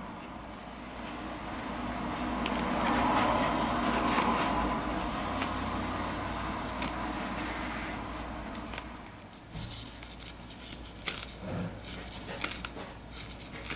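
Low-rebound foam squishy toys being squeezed and worked by hand close to the microphone: a soft rush that swells and fades over the first several seconds, then a run of sharp crackles and clicks in the last few seconds.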